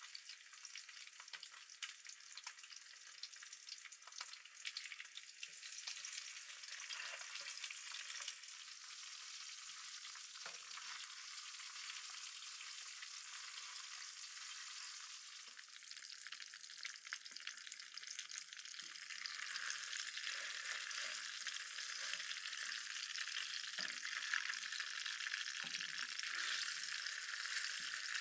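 Frying on a portable stove inside a tent: a steady sizzle dotted with fine crackles and a few small knocks, growing louder about two-thirds of the way through.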